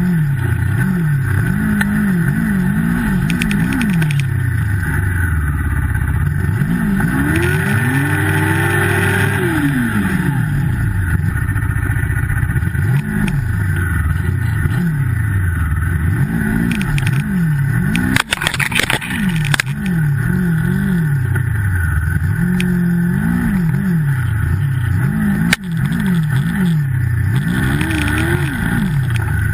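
Turbocharged Yamaha snowmobile engine revving up and down again and again as the throttle is worked in deep snow, with one longer rev held high about a quarter of the way in. A couple of sharp knocks come later on.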